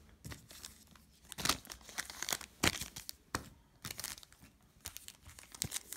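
Foil wrapper of a Panini Prizm basketball card pack crinkling and tearing as it is handled and opened, in irregular sharp crackles.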